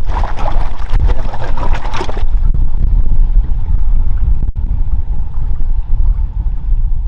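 Wind rumbling on the microphone over water lapping against a small fishing boat's hull, with a brighter splashy hiss for the first two seconds.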